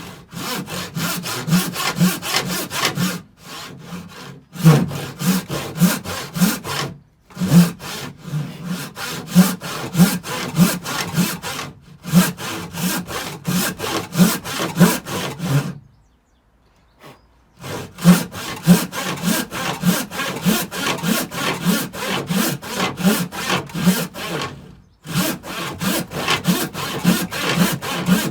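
Handsaw ripping thick square timber along the grain in steady back-and-forth strokes, about two a second. The strokes come in several runs with short pauses between them.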